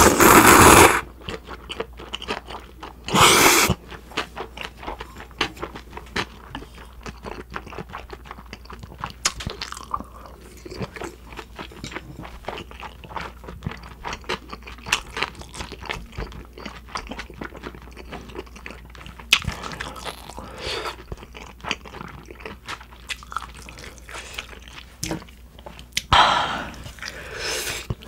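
Close-miked eating of cold naengmyeon noodles: a loud slurp of noodles at the start and another about three seconds in, then a long stretch of chewing with many small wet clicks. A longer rush of noise comes near the end.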